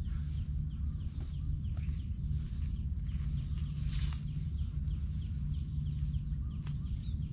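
Outdoor ambience: a steady low rumble under a steady insect drone, with many short falling chirps and a few light knocks.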